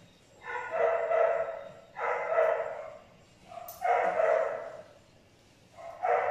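An animal's long, drawn-out calls, four of them, each about a second long and held at a fairly steady pitch, about a second and a half apart.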